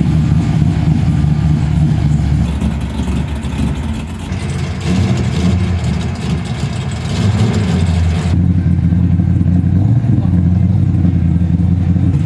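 A big engine running with a deep, steady rumble and small rises in revs; about eight seconds in the sound turns duller.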